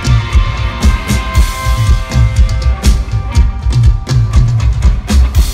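Live rock band playing an instrumental passage: drum kit pounding a steady heavy beat, about two to three hits a second, under held electric guitar notes, with no singing.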